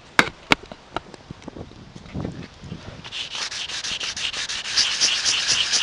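Hand sanding of cured gel-coat filler on a fibreglass boat deck with 150-grit wet/dry sandpaper, a rasping rub in quick, even back-and-forth strokes that starts about three seconds in. Two sharp knocks come just before that, within the first second.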